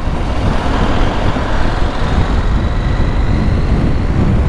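Steady wind rush and buffeting on the rider's microphone while a KTM 890 Adventure motorcycle accelerates in traffic. A faint thin whine rises slightly from about two seconds in.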